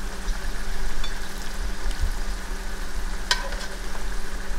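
Pasta noodles being lifted with tongs out of a pan and laid into a ceramic bowl, with a single light clink about three seconds in, over a steady hiss and low hum.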